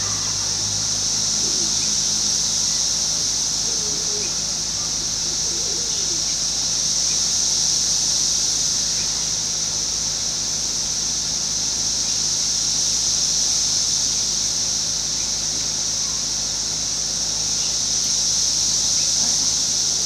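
Chorus of Brood X 17-year periodical cicadas singing as one continuous high-pitched drone that swells and eases in slow waves.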